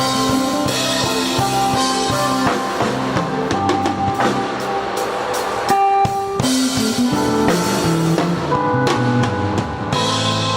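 Instrumental band music with a drum kit and guitar; the drums drop out for a moment about six seconds in, leaving a held note, then the band comes back in.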